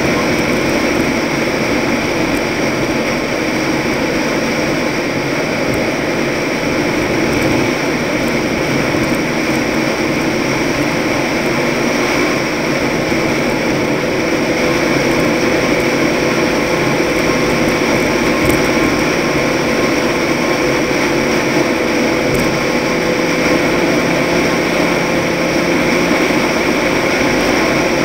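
Toyota race truck driving at speed: a steady drone of engine, tyre and wind noise picked up by a vehicle-mounted action camera, with a faint hum that barely changes pitch.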